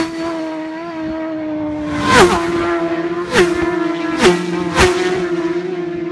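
Racing superbikes passing flat out one after another, each engine note dropping sharply in pitch as the bike goes by. Five pass: one at the very start, two more a second or so apart, then a close pair near the end, with the high engine drone of the bikes pulling away between them.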